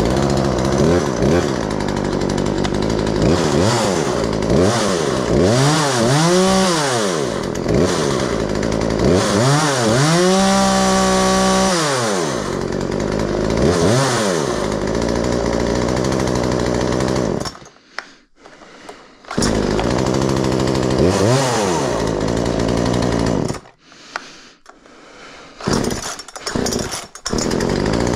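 Craftsman 36cc Poulan-built two-stroke chainsaw engine running off the wood, revved up and down in a series of rising and falling blips, with one long rev held about ten seconds in. Twice, about two-thirds through and again near the end, the engine goes quiet for a second or two before it is running again.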